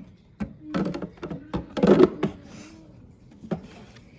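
Hard plastic clicks and knocks as the dirty-water tank is pushed onto a BISSELL CrossWave Cordless Max wet-dry vacuum. A quick cluster in the first two seconds, the loudest about two seconds in, then one more knock a little later.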